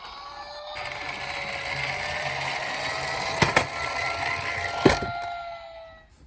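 Toy minicar's small motor whirring steadily, with a whine that drifts slightly in pitch over a rolling rattle. Two sharp knocks come about a second and a half apart partway through, and the whir fades out near the end.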